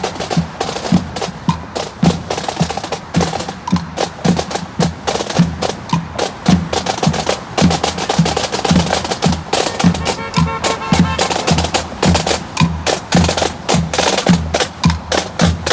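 Parade drum line playing a marching cadence: rapid snare drum strokes and rolls over a steady bass drum beat about twice a second, with a few brief held tones from other instruments about ten seconds in.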